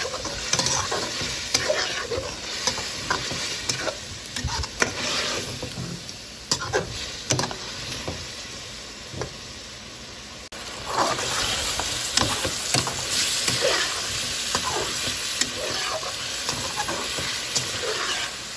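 Cubed potatoes sizzling as they fry in oil and onion-tomato masala, with a metal spoon scraping and knocking against the pan as they are stirred. The sizzling grows louder about halfway through.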